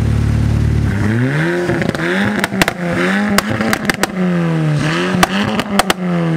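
Volkswagen Golf R Mk6's turbocharged four-cylinder revved from idle, blipped again and again so the pitch climbs and drops, ending in a long falling rev. Sharp exhaust pops crack between the blips.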